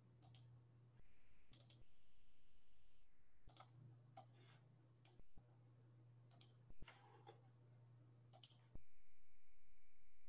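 Faint, scattered computer mouse clicks over a low electrical hum, with a few stretches of steady hiss carrying a faint high whine, the loudest near the end.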